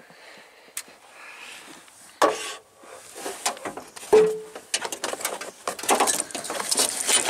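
Handling noises from a hand in a shot-through truck door's wiring and plastic trim: scrapes, rustles and clicks. A knock comes a little after two seconds and a short, loud squeak about four seconds in, followed by a quick run of crackling clicks.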